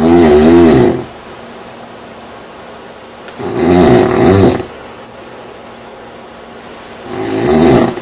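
A man snoring loudly in his sleep: three heavy, rasping snores about a second long each, one every three and a half seconds or so.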